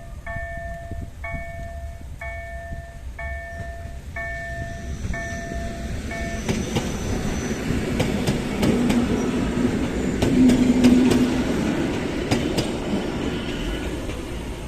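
Level-crossing electronic warning bell (KLD-4103) sounding evenly repeated dings, a little under two a second, which stop about six seconds in. A train then passes over the crossing, its wheels clicking over the rail joints, growing louder to a peak near the eleventh second.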